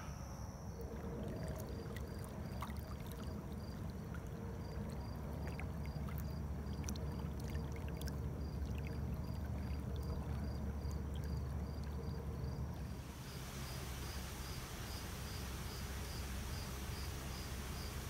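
Crickets chirping at an even pace over a low, steady rumble. About thirteen seconds in, a brighter hiss joins.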